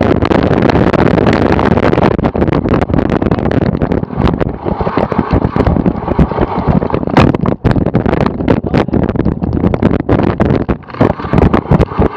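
Wind buffeting the microphone of a bike-mounted action camera while riding a cyclocross bike over bumpy grass, with many sharp rattling knocks from the bike jolting over the ground. The rush eases a little after about four seconds.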